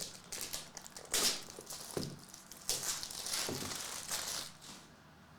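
Plastic wrapping crinkling and tearing in irregular bursts as a sealed box of trading cards is opened by hand; the rustling fades out about a second before the end.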